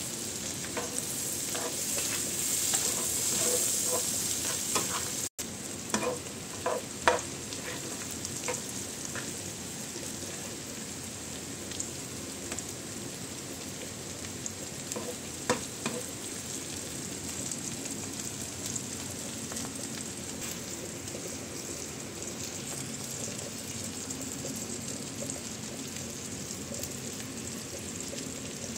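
Shrimp sizzling in hot butter and garlic in a nonstick frying pan, loudest in the first few seconds, with a cooking utensil knocking against the pan a few times.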